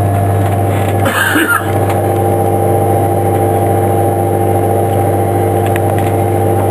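Steady machinery hum in the powered-up aircraft: a low drone with several steady higher tones over it. A brief rustle comes about a second in.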